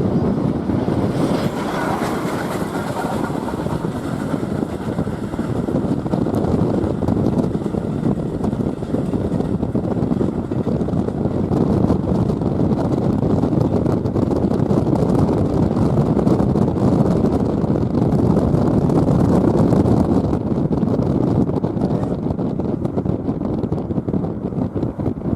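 Steady rush of wind on the microphone and road noise from a moving vehicle keeping pace with a steam train, with the train's running sound mixed in.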